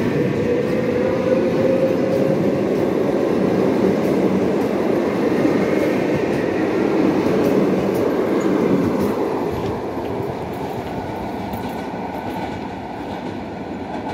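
EP2D electric multiple unit accelerating away along the platform: wheels rumbling on the rails under a whine that rises slightly in pitch. The sound fades from about nine seconds in as the last cars pass and the train draws away.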